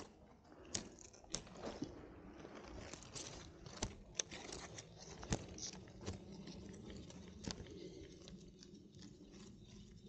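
Close rustling and scattered sharp crackles and clicks of handling noise from hands, clothing and foliage next to the camera.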